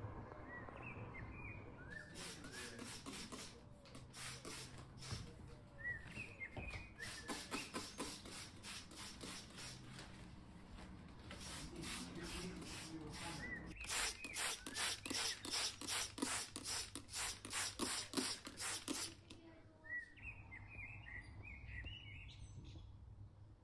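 Trigger spray bottle misting houseplants in quick repeated squirts, about three or four a second, stopping a few seconds before the end. Birds chirp in the gaps and after the spraying stops.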